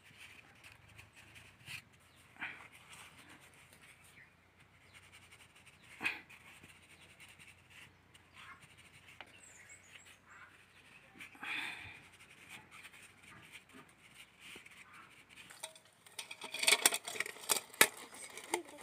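Soft, scattered taps as flour is scooped with a plastic bowl into a steel plate. Near the end, a loud dense run of cracks and snaps from a bundle of dry twigs being handled and broken.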